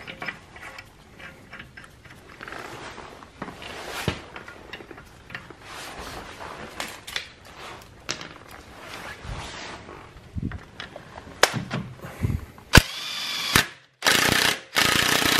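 Workshop tool sounds: scattered clicks and knocks of hand tools and metal parts being handled. Near the end comes a sharp knock, then a power tool runs in a short burst with a rising whine and again steadily and loudly.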